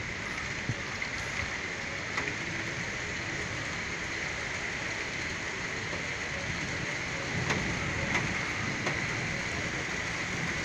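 Steady rain falling, with a few scattered drip taps.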